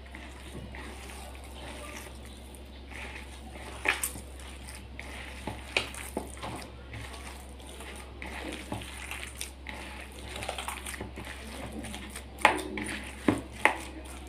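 A hand kneading and squishing raw minced chicken mixed with egg and spices in a bowl: wet squelching, with a few sharp clicks against the bowl, the loudest cluster near the end.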